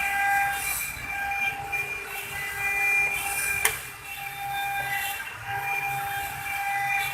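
CNC stone engraving machine running: a whine at several pitches that starts and stops as the machine moves, over a steady hum and bursts of hiss, with one sharp click about three and a half seconds in.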